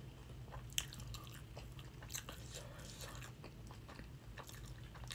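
Close-miked chewing of a mouthful of burrito: soft, wet mouth clicks and smacks, with one sharper click about a second in, over a low steady hum.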